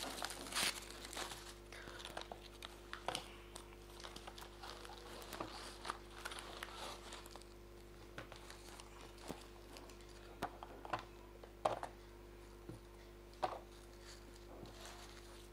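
Thin plastic carrier bag rustling and crinkling in bursts as takeaway food is pulled out of it. Now and then there is a sharp knock as a foil-wrapped roll or an aluminium container is set on the table; the two loudest knocks come near the end.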